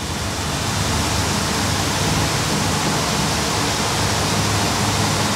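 Open-sided parking-lot tram moving over wet pavement: a steady rushing hiss of tyres and wind with a low hum underneath, building a little in the first second.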